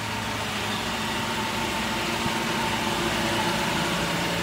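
School bus engine idling steadily, a constant low drone with a faint whine above it.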